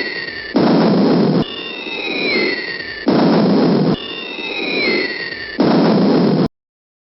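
Sound effect of a falling bomb: a descending whistle, then an explosion blast, repeated three times in a loop, cutting off abruptly near the end.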